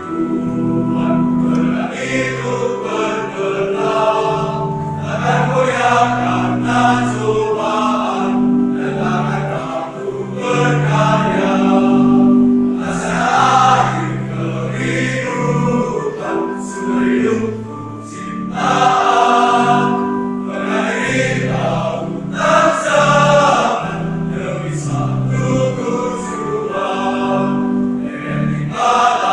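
Choir of young male seminarians singing a hymn in parts, several voices holding long notes together.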